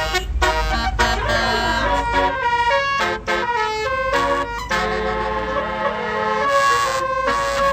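Tour bus basuri musical air horn playing a quick melody of stepped, held notes. The low rumble of the bus's engine sits under it for the first couple of seconds.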